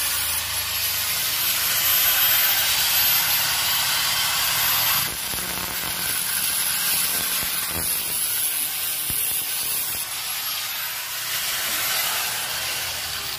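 Handheld electric angle grinder with its disc against steel rebar, giving a steady hissing grind with a thin high whine. It grows slightly quieter about five seconds in.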